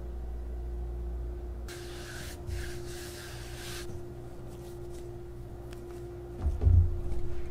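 Beet cookie dough being kneaded and pressed by hand on a floured wooden cutting board, with a few dull thumps of the dough against the board about six and a half seconds in. Before that comes a two-second stretch of hiss, over a faint steady hum.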